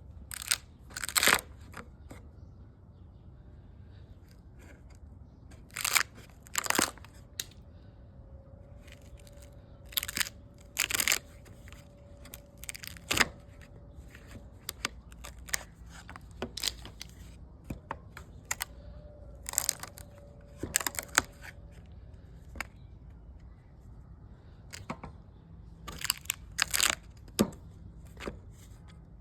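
Short crunching, tearing strokes on wood, mostly in pairs, every few seconds. A faint steady hum sounds between some of them.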